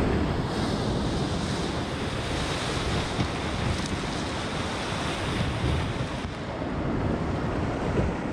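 Whitewater of a river rapid rushing and splashing around a rowed raft, with wind rumbling on the microphone.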